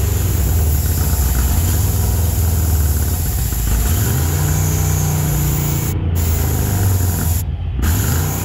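A 1968 Ford F100 pickup's engine running, revved up twice so its pitch rises: about four seconds in and again near the end.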